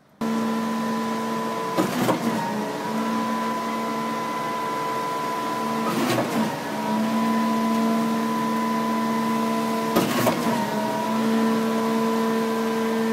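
A concrete pump's engine running steadily under load, with a sharp clunk about every four seconds as the pump changes stroke, three times in all. The engine's pitch dips briefly at each clunk.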